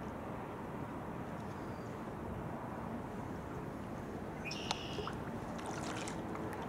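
Water sloshing against a kayak's hull and paddle blades dipping as it is paddled along, a steady wash. About four and a half seconds in comes a short high chirp with a sharp click.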